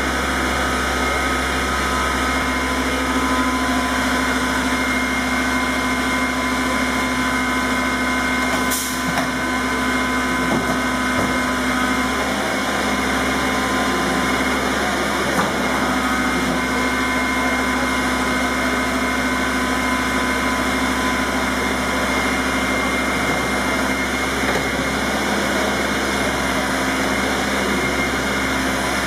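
Steady mechanical drone with several held tones over a low hum, from the equipment powering a MiG-29's landing-gear swing test, with a brief click about nine seconds in.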